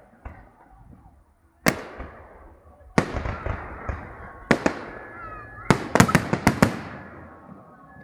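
Fireworks shells bursting: single sharp bangs a second or so apart, each trailing off, then a quick cluster of five bangs near the end.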